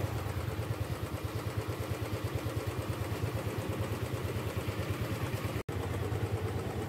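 Small single-cylinder motor scooter engine idling close by, with a steady, fast, even putter. The sound drops out for an instant near the end.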